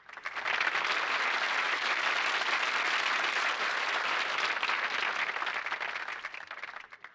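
Audience applause, a dense patter of many hands clapping, swelling up at the start and dying away near the end.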